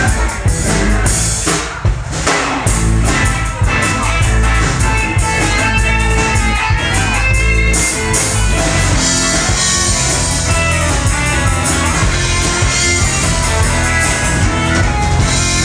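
Live rock band playing: electric guitars over a drum kit and bass, at a steady loud level.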